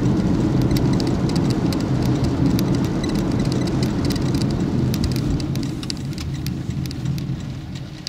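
Steady tyre and road rumble from a car on a wet road, heard inside the cabin, with a spatter of rain ticks over it. The rumble eases off near the end as the car slows.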